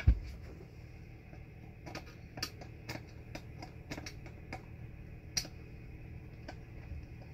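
A knock, then a series of light clicks, about two a second at first and then more irregular, as a Humvee X-door window frame and its Lexan pane are handled and fitted.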